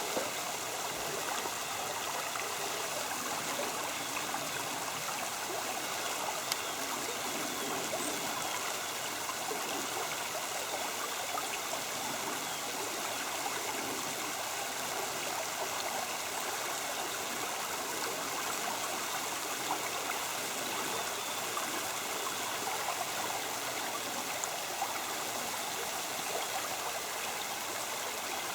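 Creek water flowing steadily, an even rushing trickle.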